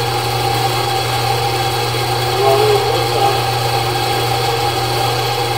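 Ridgid K-1500 sectional drain machine running steadily, a constant motor hum as its spinning cable works in a clay sewer main to cut out roots.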